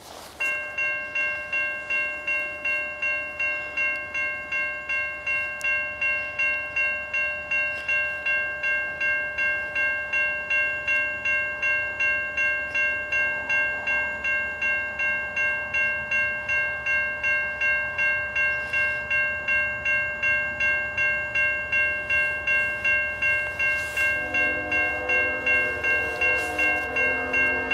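Grade crossing bell ringing at about two strokes a second as the crossing signals activate for an approaching freight train. About three seconds before the end, the lead locomotive's multi-note horn starts sounding in broken blasts.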